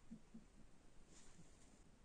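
Near silence: room tone, with a faint brief rustle about a second in.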